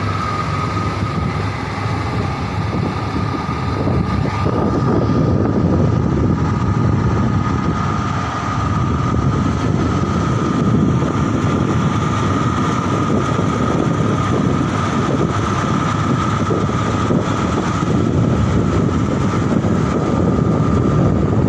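Combine harvester running while cutting wheat: a steady machine rumble with a constant high whine over it, getting louder about four seconds in.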